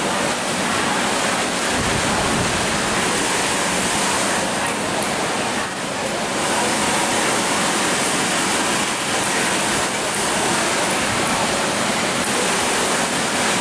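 Steady, even hiss of workshop background noise.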